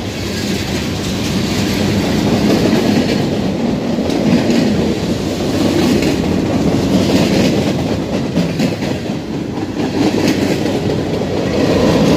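Freight cars of a Norfolk Southern train rolling past at close range: a loud, steady rumble of steel wheels on the rails, with clickety-clack as the wheels cross the rail joints.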